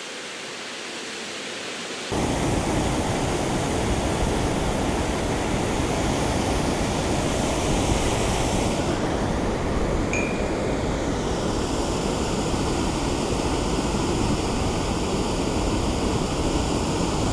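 Steady rush of turbulent water churning below a dam. It comes in abruptly about two seconds in, after a fainter hiss, and holds at an even, fairly loud level.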